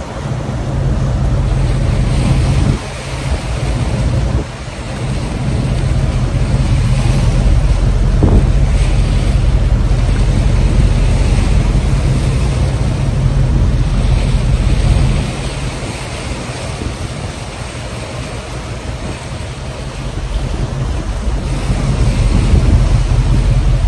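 Wind buffeting the microphone on an open boat deck over a boat's engine running and waves washing along the hull. The wind eases for a few seconds past the middle, then picks up again.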